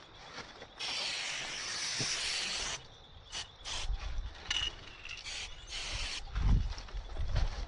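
Aerosol spray-paint can spraying: one long spray of about two seconds, then a run of short bursts. A low rumble sits under the later bursts, loudest about six and a half seconds in.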